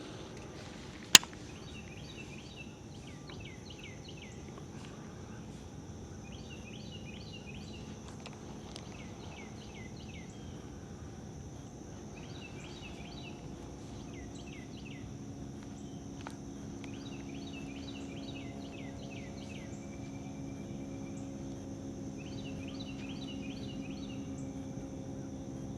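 Outdoor lakeside ambience: a steady high insect drone with short bird-like chirping phrases repeating every few seconds, and a single sharp click about a second in. A low motor hum grows louder through the second half.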